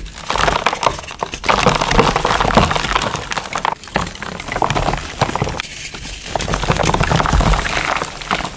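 Close-up crunching and crackling of a crumbly material being crushed and worked by hand, a dense run of small cracks and knocks that swells and eases unevenly.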